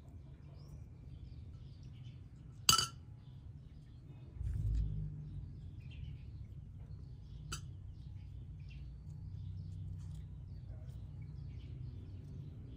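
Kitchenware clinking: one sharp, ringing clink about two and a half seconds in and a fainter one about five seconds later. There is a brief low rumble between them, over faint bird chirps.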